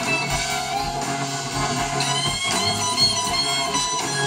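Live blues-rock band playing, led by electric guitars, with notes bending in pitch about halfway through.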